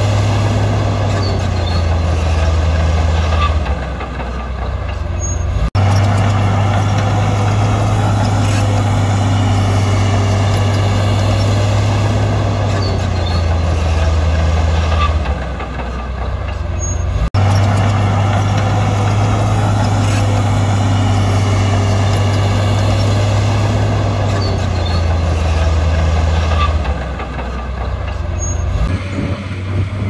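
Heavy diesel engine of earth-moving machinery running steadily under load. It eases off three times, about every twelve seconds, and breaks off abruptly twice.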